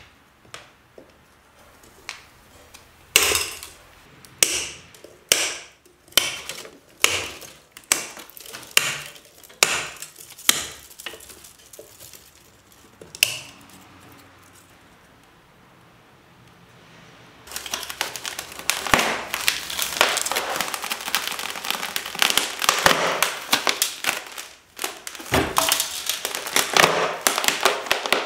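Bonsai branch cutter snipping maple twigs: a run of sharp cuts, about one a second. Around the middle the cutting stops, and later a dense, continuous crackling and crunching begins as a polystyrene foam box is broken away from the maple's root mass.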